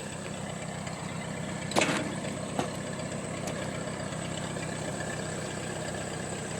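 Ford 8N tractor's four-cylinder engine idling steadily while the load is lowered, with a single sharp knock a little under two seconds in and a faint click soon after.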